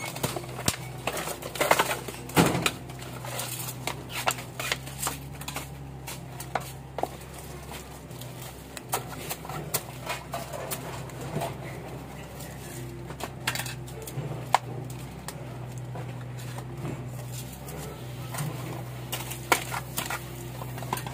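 Scattered clicks, knocks and rustles of hands working rooted snake plants loose from a pot, busier in the first several seconds and sparser after. A steady low hum runs underneath.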